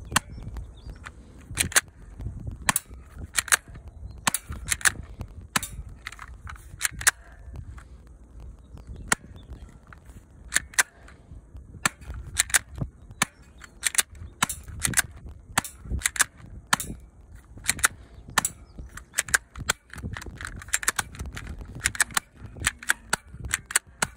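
Vektor CP1 airsoft BB pistol firing shot after shot: dozens of sharp snaps at an uneven pace, many coming two in quick succession.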